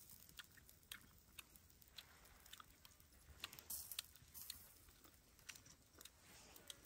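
Faint chewing and irregular small clicks of people eating grilled meat by hand.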